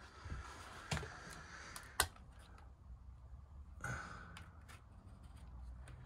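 Faint clicks and handling noises from a small wall-mounted heater control being turned by hand, with one sharper click about two seconds in and soft rustling; the bus's gas heater gives no response.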